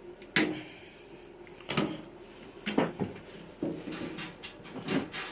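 A handful of separate knocks and clicks, about six of them, spaced roughly a second apart.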